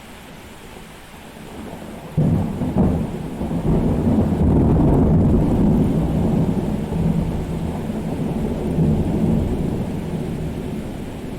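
Thunderstorm: steady rain hiss, then a sharp thunderclap about two seconds in that rolls into a long, deep rumble, slowly dying away.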